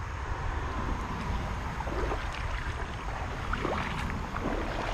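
Shallow creek water trickling and sloshing, with irregular small splashes from about two seconds in, over a steady low rumble.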